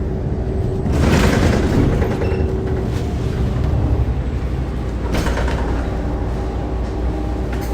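A city bus running, heard inside the bus: a steady low rumble of engine and road noise. A louder swell of hissing noise comes about a second in, and a shorter one around five seconds.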